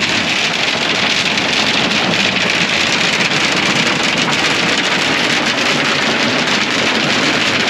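Hail and rain pelting a combine cab in a storm: a dense, steady patter of many small hits on the roof and glass, heard from inside the cab.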